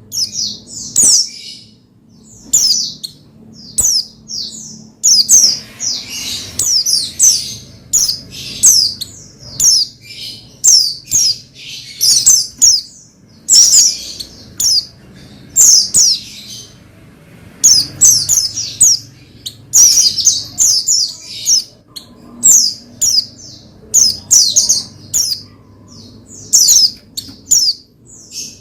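White-eye (pleci) singing: short, high, rapid chirping phrases of sharply falling notes, repeated one or two times a second.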